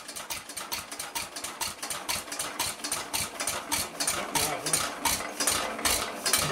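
1913 Stickney 1 3/4 HP hit-and-miss engine, freshly rebuilt with a new sleeve, timing gears and valves, running with an even clatter of about six ticks a second.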